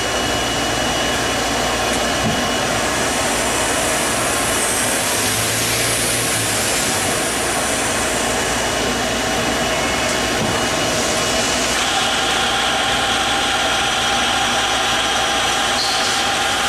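Hyundai-Kia SKT-21LMS CNC lathe running: a steady machine hum and hiss with several fixed tones. A faint high whine rises and falls midway, and the tones shift about twelve seconds in as the turret moves in toward the subspindle.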